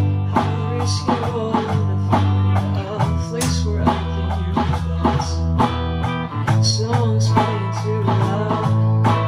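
Small rock band playing a song live: electric guitars and drums over a steady beat, with a singer's voice.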